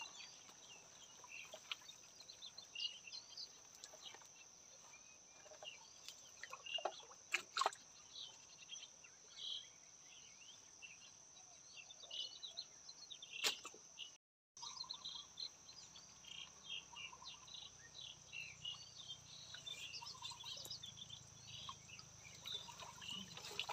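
Small birds chirping and twittering over a steady high-pitched hum, with a few sharp clicks or knocks from the lift net and water; the sound drops out briefly about two-thirds of the way through.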